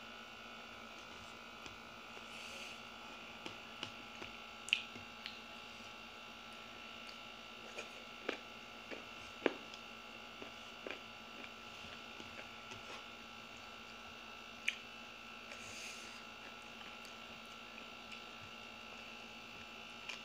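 A person eating grilled fish and rice by hand: scattered short clicks and smacks of chewing and of fingers picking food from a plate, about a dozen, over a steady electrical hum.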